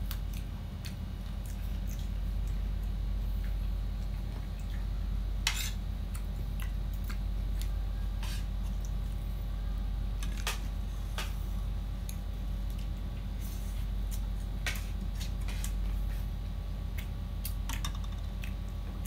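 Mukbang eating sounds: fingers working through rice and boiled pork, with scattered small clicks and clinks of a spoon and fork against plates and a soup bowl, a couple of sharper clinks about five and a half and ten and a half seconds in. A steady low hum runs underneath.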